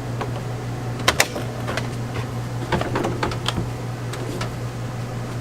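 Irregular sharp clicks and light knocks of hand work on screen-door hardware and tools, two loud clicks close together about a second in, over a steady low hum.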